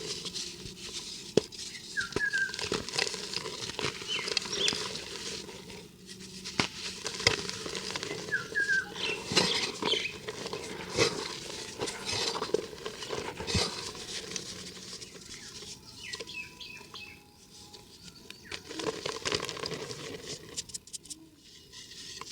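Dry cement-and-dirt chunks crumbling, with an irregular gritty crackle and patter of many small sharp clicks as the pieces break and fall. A few short high chirps come through at times.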